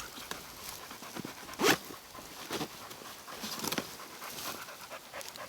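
A dog panting and breathing hard in irregular breaths, one louder breath about a second and a half in.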